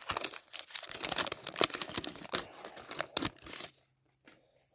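Waxed-paper wrapper of a 1989 Fleer baseball card wax pack crinkling and tearing as it is torn open by hand, a dense run of crackles that stops about four seconds in.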